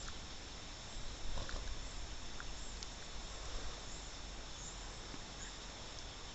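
Quiet open-field ambience: a steady low hiss with a faint, continuous high-pitched insect chirring and a few soft scattered ticks.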